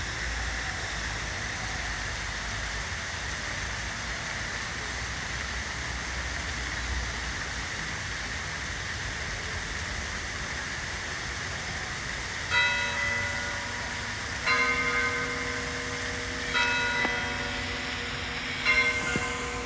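Steady splashing of a nearby fountain, then about twelve seconds in a church bell begins to toll: four strokes about two seconds apart, each ringing on into the next.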